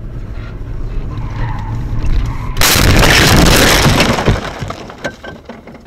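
Car crash heard from inside the dashcam car: steady road rumble, then a sudden loud crash about two and a half seconds in that lasts under two seconds and dies away, with a few knocks after it.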